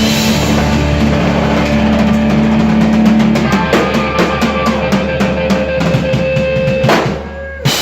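Live rock band ending a song: the full band plays, then about three and a half seconds in the drums break into a rapid run of hits over one held note, dropping away briefly before a final loud hit near the end.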